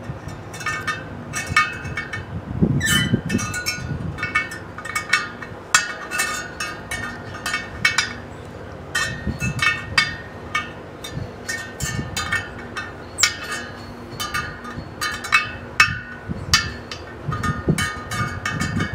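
Irregular metallic clinks and pings from a spoke wrench working the nipples of a wire-spoke motorcycle wheel, the spokes ringing briefly after each contact, as spokes are loosened to true a low spot in the wheel.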